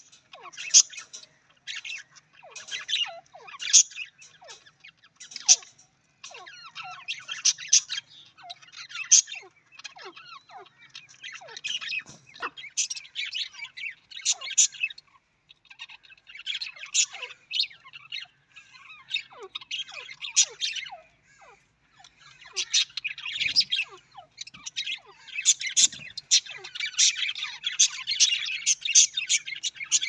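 A flock of budgerigars chattering and warbling: rapid high chirps and short squawks that overlap almost without pause, thickest near the end.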